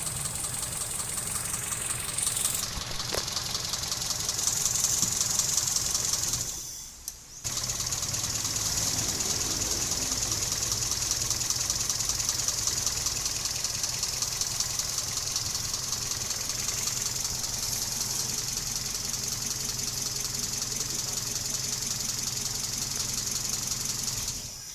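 Mitsubishi 4G33 four-cylinder carbureted engine idling rough, a rough idle the mechanics put down to a vacuum leak. It runs louder for a couple of seconds about four seconds in and breaks off briefly near seven seconds in.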